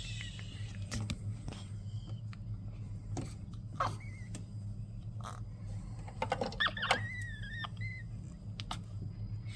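A newborn baby making a few short, wavering high squeaks, about four seconds in and again around seven seconds, among soft clicks and rustling over a steady low hum.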